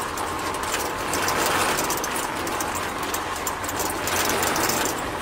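Small battery-powered DC motor and plastic gear train of a homemade miniature concrete-mixer cart running steadily, a dense buzzing rattle of fine rapid ticks.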